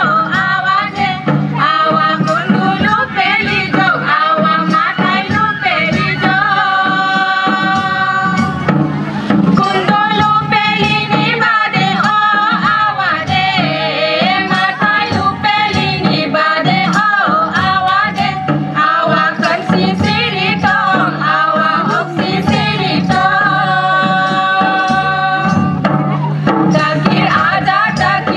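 Koch folk dance music: singing with wavering melody lines and a few long held notes over continuous drumming.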